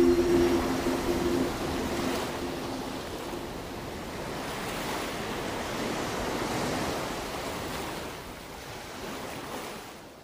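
Storm wind and rough sea heard from a container ship's deck: a steady rushing of wind and waves, with wind buffeting the microphone. A low droning tone fades away in the first couple of seconds, and the rushing dies down near the end.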